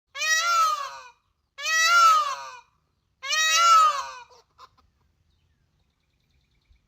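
A bird calling three times, about a second and a half apart, each call about a second long, loud and rising then falling in pitch, followed by two brief faint notes.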